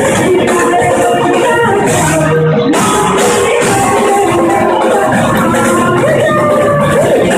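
Garba dance music played loud, with a bending melody line over a steady beat of shaker-like high percussion.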